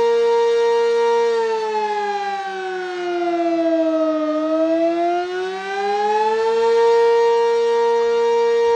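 Sentry 20V2T outdoor warning siren sounding loud and steady. Its pitch sags slowly from about a second in, bottoms out near the middle, and climbs back to the full steady tone a couple of seconds before the end.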